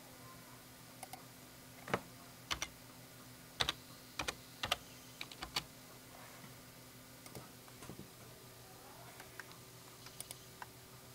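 Computer keyboard being typed on: an irregular run of sharp key clicks in the first half, then a few scattered clicks, over a faint steady hum.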